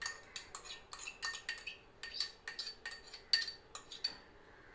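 Spoon tapping and scraping against a small ceramic bowl to empty out chopped coriander leaves: a quick, irregular run of light clinks with a short ring, stopping about four seconds in.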